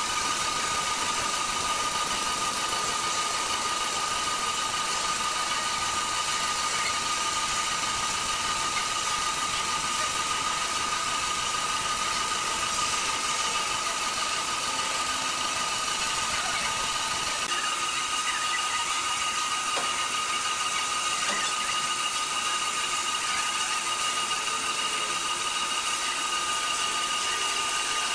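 Horizontal band sawmill running, its blade sawing through a large squared timber block: a steady high whine over an even sawing hiss, with a second, higher whine joining about two-thirds of the way through.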